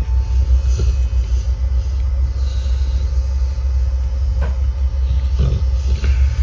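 Rottweiler snoring loudly: a continuous low rumble, with a breathy hiss swelling on each breath about every two to three seconds.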